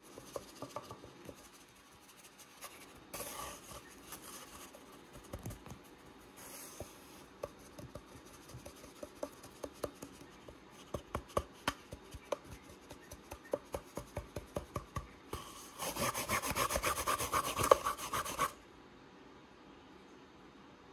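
Empty cardboard toilet-roll tube being played with by a kitten: scattered taps, clicks and scrapes, then a louder stretch of rapid scratching and rasping on the cardboard for a few seconds near the end.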